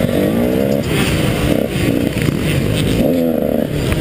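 KTM 150 XC two-stroke dirt bike engine revving up and down, with two rising sweeps in pitch, one at the start and one near the end.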